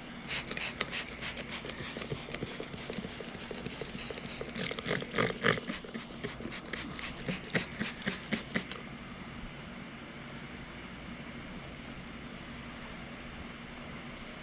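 A handheld trigger spray bottle squeezed rapidly, about four sharp hissing squirts a second for some eight seconds, then it stops. Under it the steady hum of a carpet-cleaning extractor.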